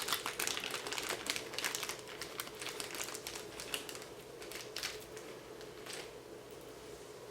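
Crinkling and light clicking of small electronic parts and their wiring being handled, dense for the first few seconds and then thinning to scattered ticks.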